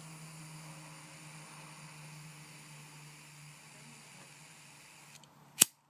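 Steady hiss of butane gas escaping from a held-open lighter for about five seconds, then a single sharp click near the end.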